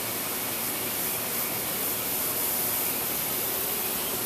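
Steady hiss of background noise, even and unchanging.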